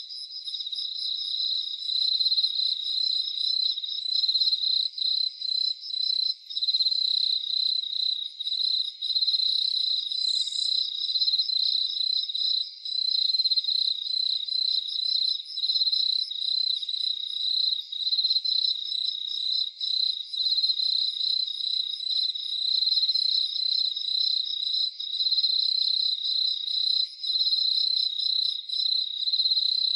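Crickets chirping in a dense nighttime chorus: one steady, rapidly pulsing trill is loudest, with other crickets trilling more faintly at higher pitches behind it.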